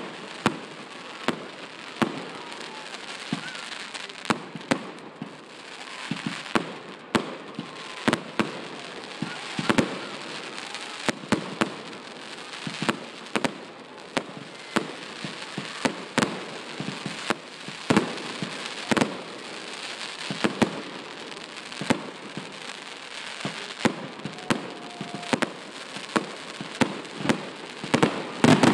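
Fireworks going off: irregular sharp bangs and pops, about one or two a second, over continuous crackling. A cluster of louder bangs comes near the end.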